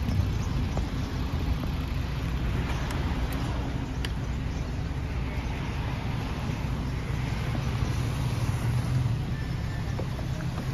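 MAN TGS 26.320 rear-loader garbage truck's diesel engine idling, a steady low rumble.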